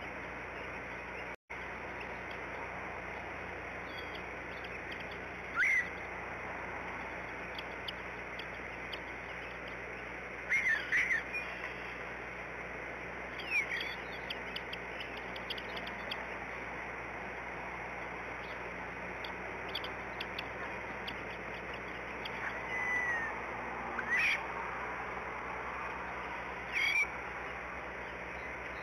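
Bald eagles at the nest giving short, high chirping calls, about six brief calls scattered through, over a steady outdoor hiss.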